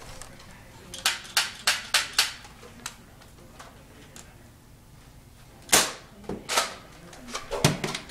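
Spring-powered Nerf dart blasters being worked and fired: sharp plastic snaps and clacks. First a run of five about a third of a second apart, then a single louder snap about six seconds in, and a cluster of clacks near the end.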